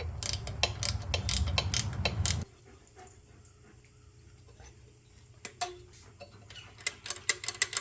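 A dog close by, with quick clicks over a low rumble for about two and a half seconds. A few scattered light clicks and taps follow near the end.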